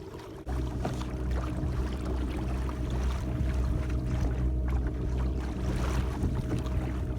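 Kayak motor running steadily at speed, a constant low hum that gets louder about half a second in.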